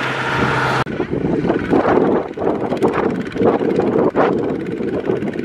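Single-cylinder diesel engine of a two-wheel power tiller (walking tractor) running under load as it hauls a loaded trailer through mud. A steady hum changes abruptly a little under a second in to an uneven, pulsing chug.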